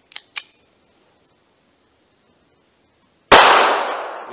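A single .380 ACP handgun shot about three seconds in, a sudden loud crack that dies away over about a second. Two light clicks come just at the start.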